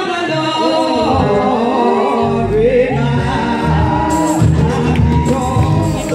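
Gospel singing breaks out suddenly, with an instrumental backing and bass joining within the first couple of seconds. A tambourine comes in about four seconds in.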